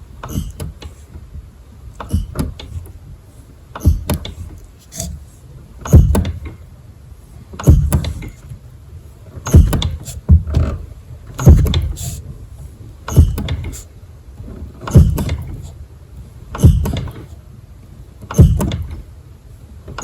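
Suzuki Alto Van clutch pedal being pressed and released over and over, about once every two seconds, each stroke giving a squeaking, creaking noise with a thump. The squeak is a fault that has come on in the clutch, cause not yet known.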